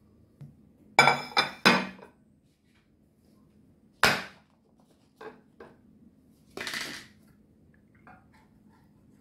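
Dishes clinking and knocking while rice is unmoulded from a bowl onto a plate: three loud ringing clinks about a second in, a sharp knock about four seconds in, two light taps, then a short scrape.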